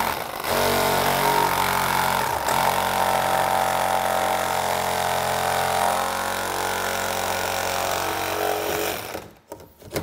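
One-handed Milwaukee reciprocating saw with a jigsaw-style blade cutting through a motorcycle saddlebag lid, its motor running steadily. It eases off briefly near the start and again about two and a half seconds in, and stops about a second before the end.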